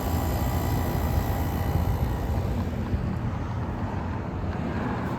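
Outdoor central air conditioner condensing unit running: a steady hum of fan and compressor, its higher hiss fading a little past halfway.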